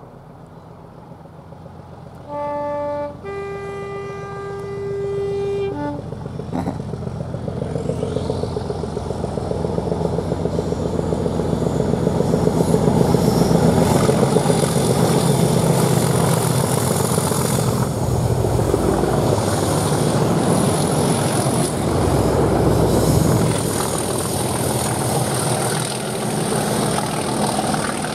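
Class 37 diesel locomotives' English Electric V12 engines growling under power as the train approaches and passes. About two seconds in, the leading locomotive sounds its two-tone horn: a short lower note, then a longer higher one. The engine growl builds steadily, is loudest as the locomotives pass, and stays strong.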